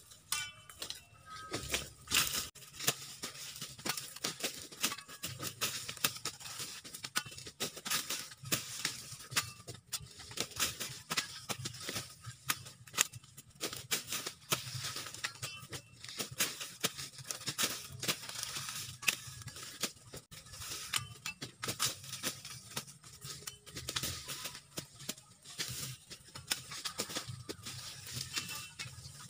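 A machete chopping and hacking at sugarcane stalks, with dry cane leaves crackling and rustling: irregular sharp cracks and snaps, several a second.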